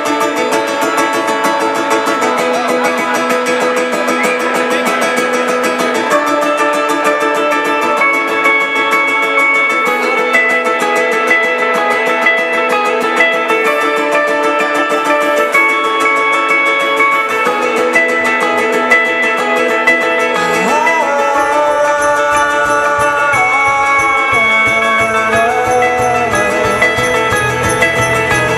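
Live rock band playing on stage: electric guitars ringing out held notes over a steady pulse, with a fuller low end joining about two-thirds of the way through.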